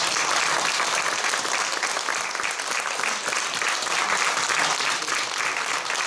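Audience applauding: steady clapping of many hands.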